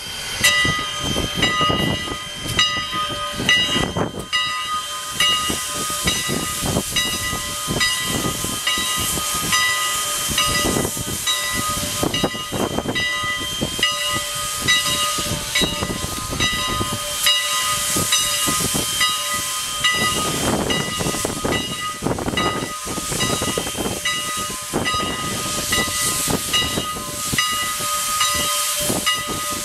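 Steam locomotive Canadian National 2-6-0 #89 moving slowly with its cylinder cocks open: steam hissing out, with slow, uneven chuffs from the exhaust every second or two. A steady high tone sounds underneath.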